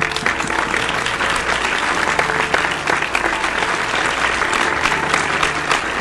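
Audience applauding, the clapping breaking out suddenly at the start and going on steadily, with soft music underneath.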